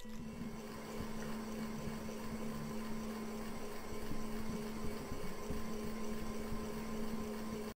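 A steady low hum over a faint even hiss, cutting off abruptly near the end.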